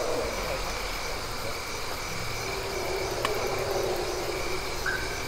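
Night insects, crickets, trilling in steady on-and-off pulses over a low background rumble, with a single click about three seconds in.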